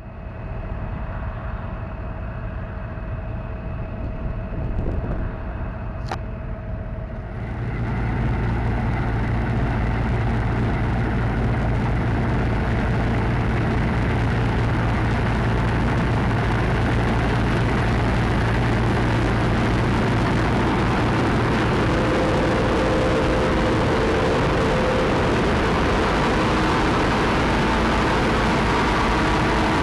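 Claas Lexion combine harvester running while it cuts and threshes rye: a steady, dense machine noise of engine and threshing works with a low hum. It becomes much louder about seven seconds in and stays steady from there on.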